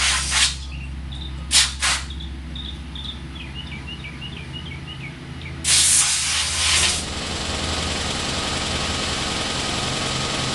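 Blasts of air blowing dirt off a lawn mower: two short hisses at the start, another pair near two seconds in, and a longer one of about a second near six seconds in. After that a steady hiss sets in, all over a low steady engine drone.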